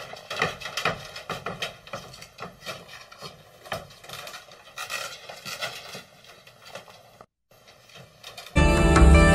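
Cat's claws scraping and clicking on a screen door as it climbs it, an irregular run of scratches. Louder music comes in near the end.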